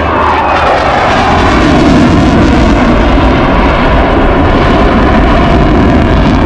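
Boeing EA-18G Growler's twin turbofan jet engines passing loudly, the pitch dropping over the first second as the jet goes by, then a steady, heavy jet noise.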